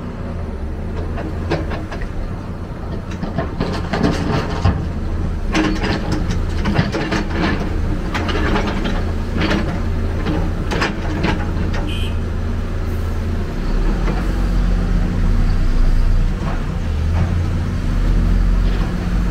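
Heavy excavator's diesel engine running steadily under work, with repeated metallic clanks and rattles through the first half, and a deeper, louder engine note from about two-thirds of the way in.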